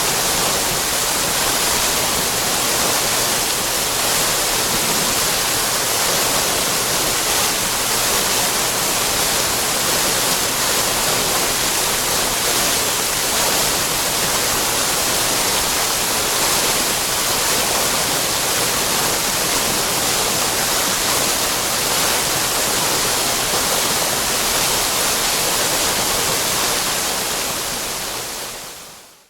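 Water fountain splashing steadily, an even rush of falling water that fades out near the end.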